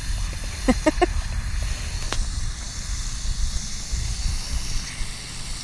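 Water hissing and spraying out of holes in a pressurised garden hose while a dog bites and drinks at the jet, with a couple of brief squeaks about a second in.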